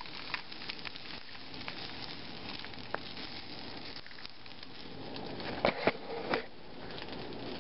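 Frying pan sizzling steadily on a gas burner, with small crackles. Near the end come two or three sharp knocks as an egg is cracked against the pan.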